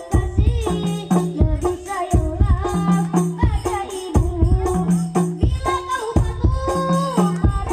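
Hadroh ensemble of hand-played frame drums and goblet drums beating a steady rhythm with jingling percussion, while a voice sings a melodic line over it.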